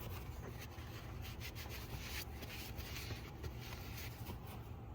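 Light rubbing and scattered small clicks of hands handling wiring and engine parts, over a low steady hum.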